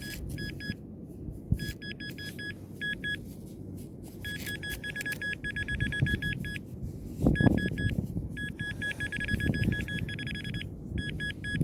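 Nokta Makro Simplex+ metal detector beeping: one high tone in quick pulses that come in clusters of varying length, stopping and starting as the coil is swept over the sand.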